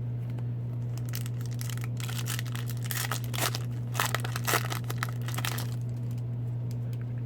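A foil trading-card pack wrapper being torn open and crinkled, in a run of crackly rips and rustles from about a second in until nearly six seconds, over a steady low hum.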